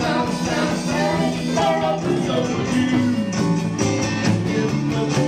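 Rock band playing live: a man sings over electric guitar and bass.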